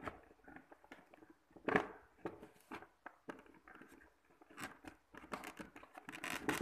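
Handling noise: irregular rustling and light knocks as leather dress shoes are moved about on their cardboard shoe box, growing busier in the last second or so.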